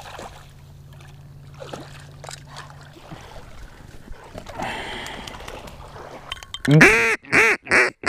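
A run of about five loud duck quacks, roughly three a second, beginning near the end after several seconds of faint background with small clicks.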